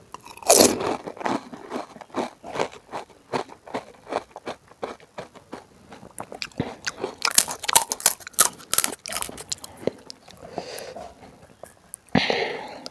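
Pani puri being crunched and chewed: crisp fried puri shells cracking between the teeth in many quick clicks, densest about seven to nine seconds in, with a short louder rush of noise near the end.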